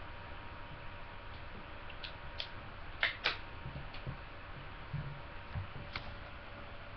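A few light clicks and taps from handling small objects, two close together about three seconds in being the loudest, with a soft knock near the end, over steady webcam microphone hiss and a faint electrical hum.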